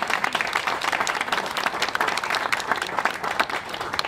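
An audience applauding, a dense patter of many hands clapping that thins out at the very end.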